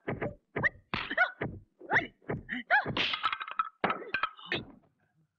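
Kung fu film fight sound effects: a quick run of dubbed punch and kick whacks, many paired with short shouts from the fighters, stopping just before the end.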